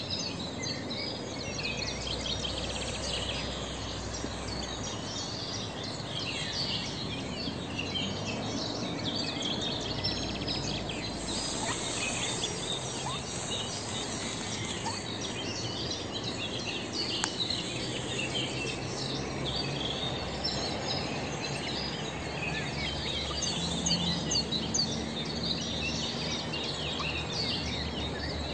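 Many short, high-pitched bird chirps over a steady background hiss.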